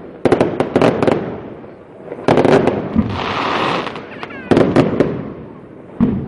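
Aerial firework shells bursting in a display: rapid clusters of sharp bangs, with about a second of crackling hiss in the middle.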